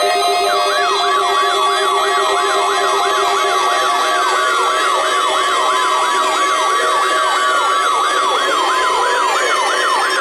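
NOAA Weather Radio warning alarm test: a steady high alarm tone, the 1050 Hz weather radio warning tone, comes on about half a second in. Over it run siren-like sweeps that rise and fall about three times a second, along with slower falling glides, as from weather alert receivers sounding.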